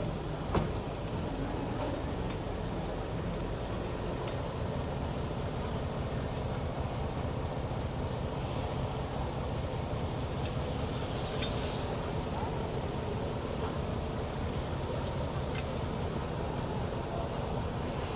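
Fishing boat's engine running steadily, a low rumble, with one sharp knock about half a second in.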